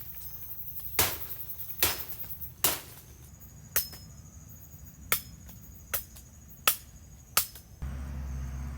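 Eight sharp strikes of a hand tool, irregularly about a second apart, over a faint steady high buzz of insects. Near the end the sound changes abruptly to a steady low hum.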